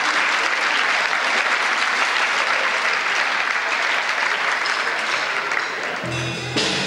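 Audience applauding steadily. About six seconds in, amplified guitar music starts up again.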